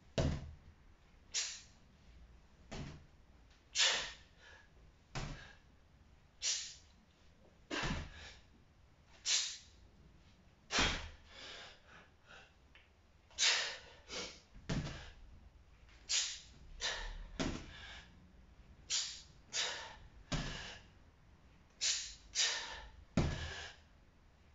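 Sharp, forceful breaths, hissing in and out about every second and a half, from a man straining through repeated one-handed deadlifts of a 92 kg kettlebell. Several breaths come with a low thump.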